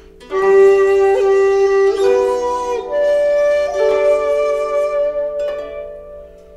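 Instrumental background music: slow melody of long held notes over sustained accompaniment, in phrases of a couple of seconds, fading out near the end.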